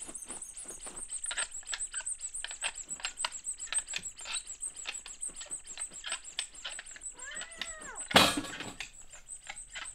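Hand-made cartoon sound effects: rapid, irregular tapping and clicking as a cat claws at a birdcage. A short cat-like cry rises and falls about seven seconds in, and a loud crash comes just after eight seconds. A thin high tone runs underneath.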